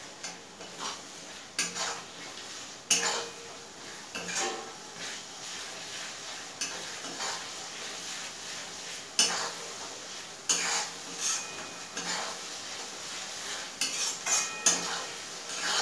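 Metal spatula scraping and knocking against a metal kadai as sliced onions and ground spices are stir-fried in oil, over a steady sizzle. The scrapes come irregularly, every second or so, while the spice paste is cooked down (kosha).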